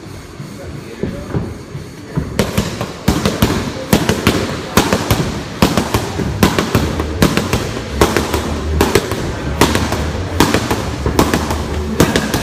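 Boxing gloves smacking focus mitts in quick combinations. Sharp pops come in clusters of two to four from about two seconds in.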